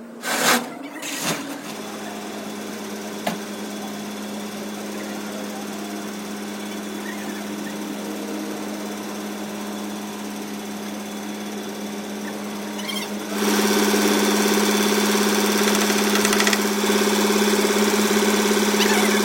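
A motor running steadily at a fixed pitch, after two knocks near the start; it gets louder and fuller about thirteen seconds in.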